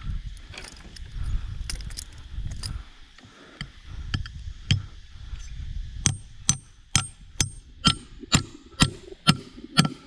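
Repeated sharp blows of a tool striking, evenly spaced about two a second from about six seconds in, each with a brief high ring; before that, scattered knocks over a low rumble.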